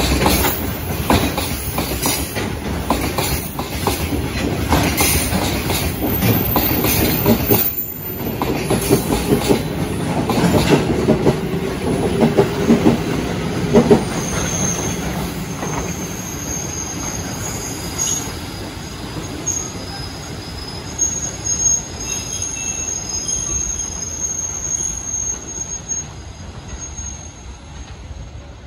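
Freight train of cement tank wagons rolling past, wheels clattering over the rail joints. After the last wagon goes by, about halfway through, a high steady wheel squeal rings out as the train draws away, fading near the end.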